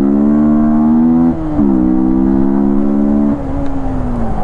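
Yamaha MT-15's 155 cc single-cylinder engine, running with an open air filter, pulling hard with its pitch slowly climbing. The pitch dips briefly about one and a half seconds in and then climbs again. Near the end it gets quieter and slides down in pitch as the throttle closes.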